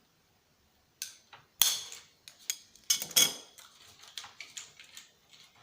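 Hard knocks and clattering of parts being handled and pulled at while taking apart a CRT television: a sharp hit about one and a half seconds in, a louder clatter around three seconds in, then a run of small clicks.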